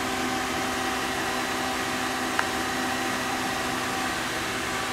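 Steady fan-like hum and hiss of running equipment, with a few steady low tones underneath and one small click about two and a half seconds in.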